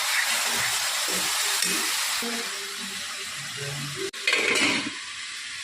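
Spiced duck meat sizzling in hot oil in a kadai as it is stirred, with a spatula scraping the pan. About four seconds in the sound breaks off and resumes louder for a moment.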